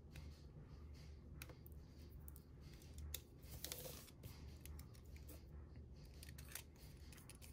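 Faint scattered clicks of small plastic parts as gel pen refills have their protective tips popped off and are fitted into a multi-pen barrel, with a brief rustle a little past the middle.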